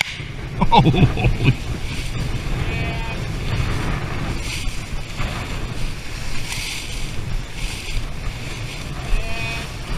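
Wind buffeting the microphone, a steady rumble with a hiss over it, in an open harvested field. A short voice-like call falls in pitch about a second in and is the loudest thing heard.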